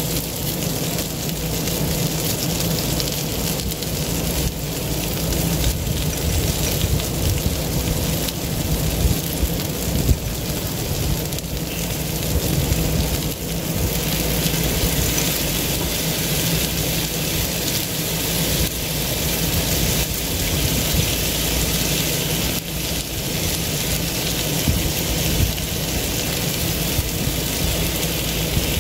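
Chicken thighs and barbecue sauce sizzling steadily on a hot Blackstone flat-top griddle, with a steady low rumble underneath.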